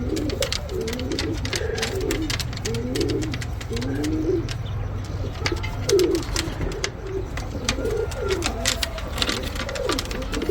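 Pigeons cooing: a continuous run of low, wavering coos following one another with little break, mixed with frequent sharp clicks and taps and a steady low hum underneath.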